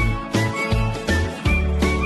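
Background music with a steady beat and a bass line under short melody notes.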